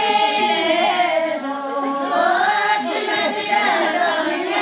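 A group of women singing together, their voices held in long, slowly wavering notes.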